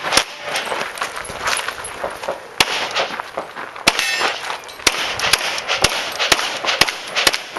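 About nine handgun shots fired one after another through a practical-shooting stage, sharp cracks that come about every half second over the last few seconds.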